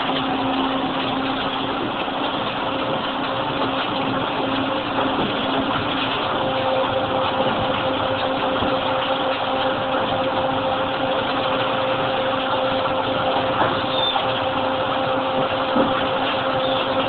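Nissei FS260 hydraulic injection molding machine running, its hydraulic pump giving a steady hum over an even rushing noise.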